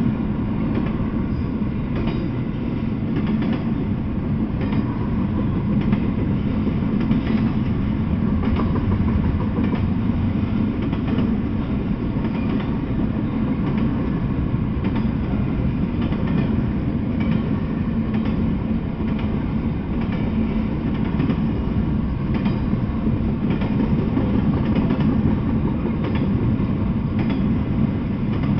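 Double-stack intermodal container freight train rolling past: a steady, low rumble of the cars, with faint repeated clicks from the wheels over the rails. It is heard through a trail camera's microphone, so the high end is cut off.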